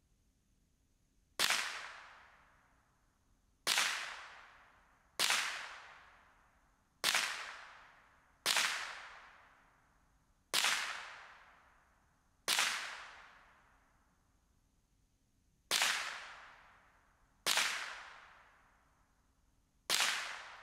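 Ten single shots from a Ruger 10/22 .22 rimfire rifle, fired slowly one to three seconds apart. Each is a sharp crack that trails off over a second or so.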